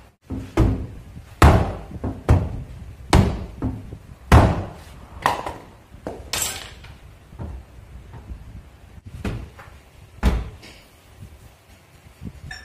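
The trunk lid of a 2013–2014 Nissan Sentra being slammed shut and lifted again several times: a series of heavy thuds, roughly one a second, with a brief high-pitched squeak about halfway.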